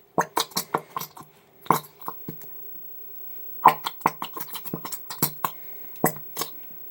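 Squeeze bottle of glitter glue being squeezed and shaken over a mixing bowl to empty it: irregular clusters of short clicks and knocks, with a pause of about a second in the middle.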